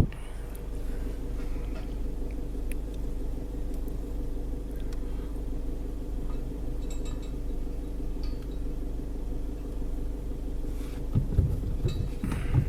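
Car engine idling steadily, heard from inside the cabin, with a sharp click at the start and a few low thumps near the end.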